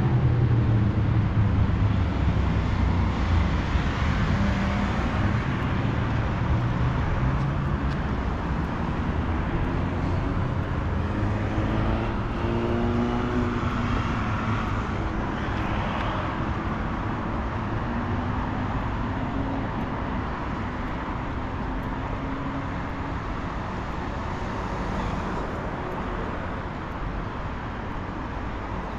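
City street traffic: cars and other motor vehicles passing with steady tyre and engine noise, loudest at the start and slowly fading. About halfway through, another vehicle's engine note rises and falls as it goes by.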